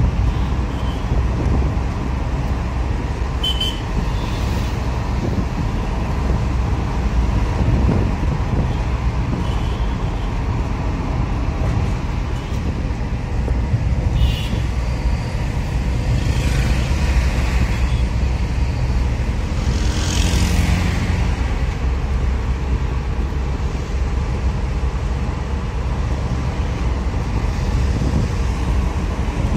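Steady low rumble of a moving vehicle's engine and tyres on the road, heard from inside the cabin, with surrounding traffic. A few brief higher noises cut across it, the clearest about 20 seconds in.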